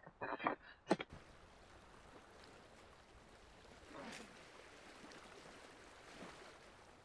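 Faint, steady trickling and lapping of water, with two soft splashes about four and six seconds in. A few short knocks and a sharp click come in the first second.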